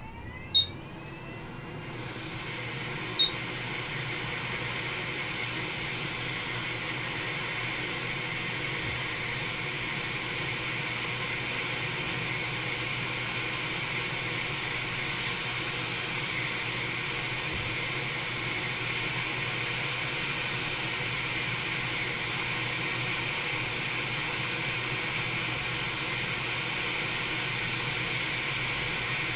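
Hot air rework station blowing at 480 °C and about 60% airflow: its blower spins up with a rising whine over the first two seconds, then runs as a steady hiss while it heats a laptop motherboard connector to desolder it. Two short high beeps sound near the start.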